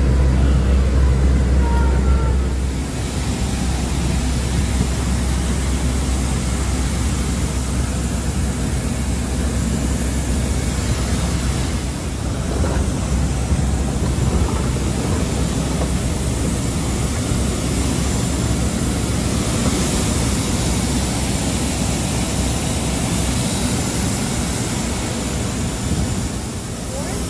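A bus engine's low rumble for the first few seconds, then, about three seconds in, an abrupt change to steady airport apron noise: an even rush of sound with no distinct events, from aircraft and ground equipment near the boarding stairs.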